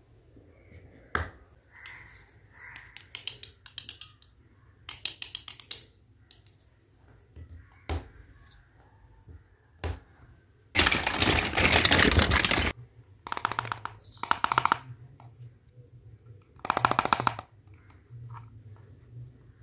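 Small plastic toy kitchen pieces clicking and clattering as they are handled and set down on a table, in scattered clicks and short rattles. About eleven seconds in comes a louder, denser burst of rattling lasting about two seconds.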